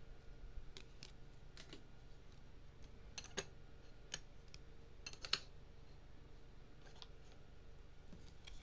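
Scattered light clicks and taps from chrome trading cards being handled and shuffled through a pack, about a dozen spread over the stretch, the sharpest about three and a half and five seconds in, over a low steady room hum.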